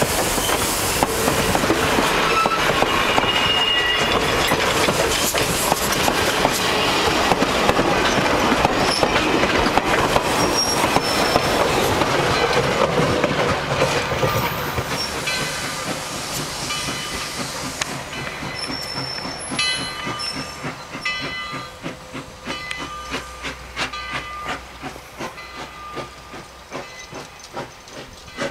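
Railroad passenger coaches and cabooses rolling past close by, their wheels clattering on the rails. After the last caboose goes by about halfway through, the noise fades as the train draws away, leaving spaced clicks of the wheels on the track.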